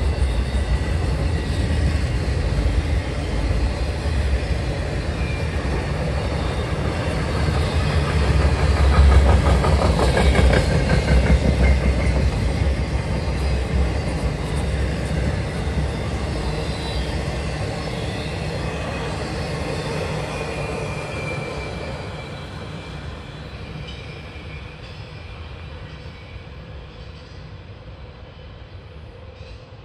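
Intermodal freight train of trailers on flatcars rolling past, a steady rumble with rhythmic wheel clatter over the rail joints. It is loudest about ten seconds in, then fades as the last cars pass and the train moves away.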